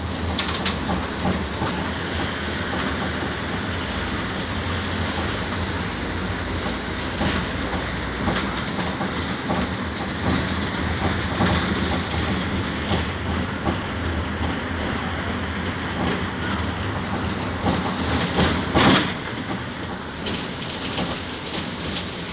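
Cabin noise of an articulated city bus on the move: a steady engine and road rumble with the rattling of seats and fittings, and one loud knock a little before the end.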